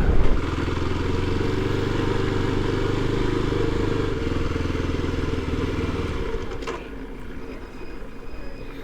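Kawasaki KLX 300's single-cylinder engine running steadily at low speed, its note ending about six seconds in as the engine stops, followed by a single sharp click.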